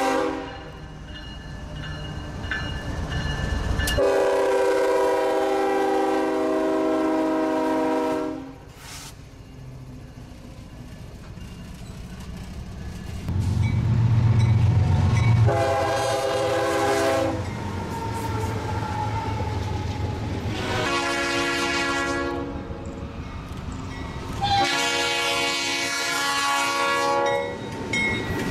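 CSX diesel freight locomotive air horns: one long chord blast, then several more blasts over a low engine rumble, the last about three seconds long.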